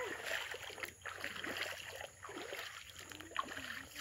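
Shallow forest stream running over stones: trickling, rushing water.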